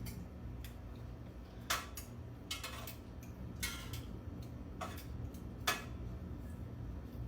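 A kitchen utensil clinking and tapping against a cooking pot of chicken stock as chicken pieces are fished out: a handful of short, irregular clinks over a steady low hum.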